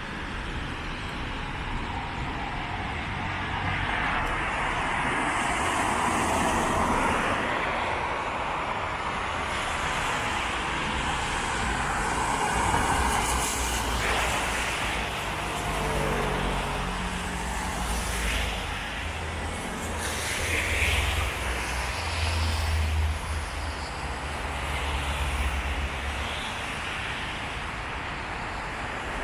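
Road traffic passing on rain-wet asphalt: cars going by one after another, their tyres hissing on the wet road, rising and fading every few seconds. A low engine hum joins in around the middle and runs for several seconds.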